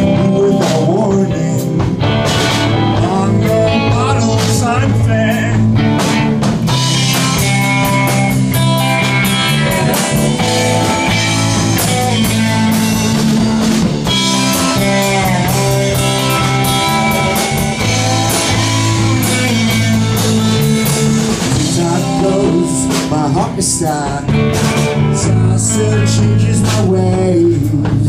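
A rock band playing live, with electric guitar, electric bass and drum kit, loud and steady throughout.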